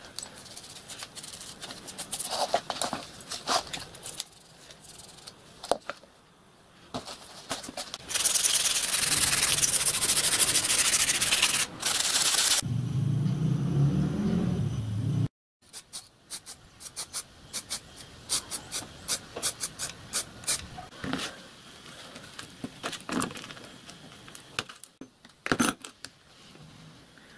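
Scratchy brushing strokes as a painted steel locomotive part is scrubbed with a brush to degrease it, then an aerosol spray-paint can hissing steadily for about four seconds with one brief break. After a cut, a run of short sharp clicks and scrapes as small painted parts are worked by hand at a bench.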